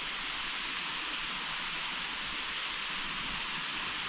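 Steady rushing hiss of running water, even and unbroken.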